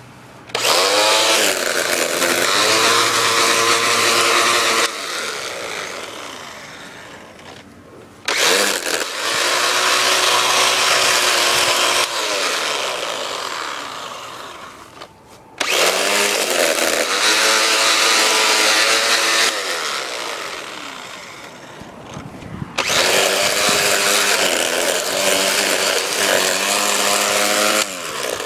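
Electric Black & Decker string trimmer motor on a homemade wheeled mower deck, run in four bursts of four to five seconds while mowing ground cover. Each time it switches on suddenly and spins up with a rising whine, the spinning line whirs through the plants, then it winds down.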